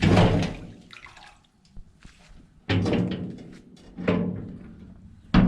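Four hollow knocks, each ringing on briefly before fading, about a second or so apart: a metal wheelbarrow being knocked or handled, with water in it.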